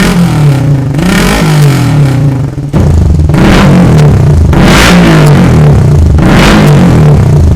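Suzuki Satria FU 150 fuel-injected single-cylinder engine revved loudly several times through a Ronin aftermarket exhaust with a small silencer insert. The pitch rises and falls with each blip of the throttle.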